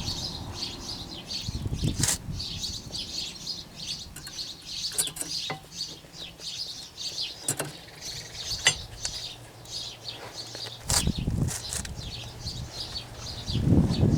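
Small birds chirping continuously, with a few sharp clicks and knocks and some heavier thumps near the end.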